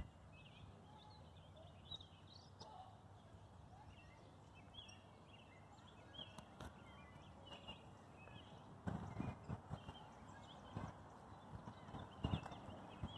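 Small birds chirping in the trees, faint and scattered, with footsteps thudding on a paved path from about nine seconds in.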